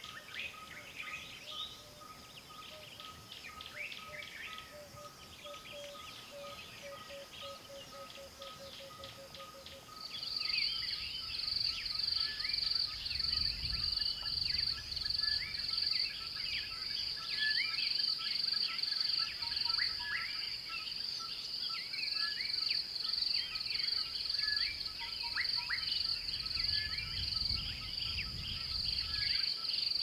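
Wild birds chirping and twittering, many short calls overlapping. About a third of the way in, a loud high buzz pulsing evenly and rapidly joins and carries on under the birdsong.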